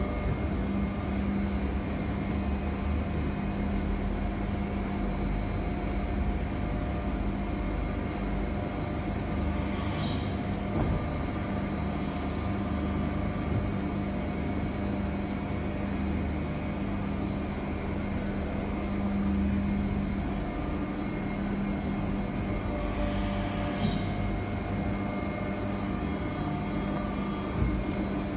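Hydraulic press brake's pump motor running with a steady hum over a low rumble, with two short hisses well apart.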